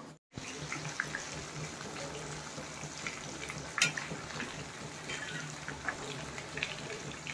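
Besan-coated aloo bondas deep-frying in hot oil in a kadhai: a steady sizzle with scattered crackles and pops.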